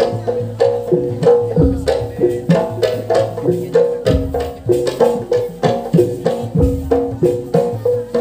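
Traditional percussion music: fast, steady pitched struck notes, about four or five a second, in a repeating melodic pattern, with a deep low stroke roughly every two and a half seconds.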